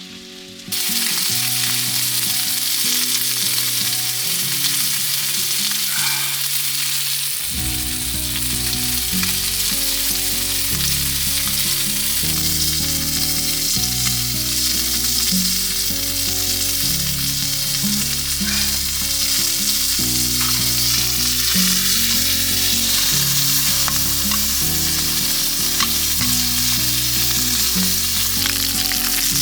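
Food sizzling as it fries in a pan, a loud steady hiss that starts suddenly under a second in, with background music, its bass line coming in about seven seconds in.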